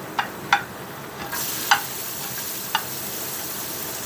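Sliced onion pushed with a spoon into hot olive oil and garlic in a pan. The oil breaks into a steady sizzle about a second in, with a few sharp clicks of the spoon against the plate and pan.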